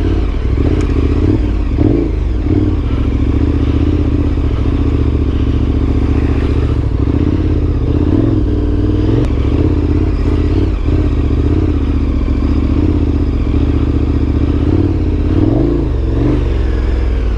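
KTM 1290 Super Adventure's V-twin engine running steadily at trail speed, with clatter from the drive chain slapping over the bumps.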